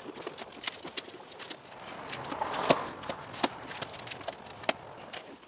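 Hand laminating roller pressing a glued Filon fiberglass sheet down onto the trailer roof: irregular clicks and knocks, with a brief rolling rush about two and a half seconds in.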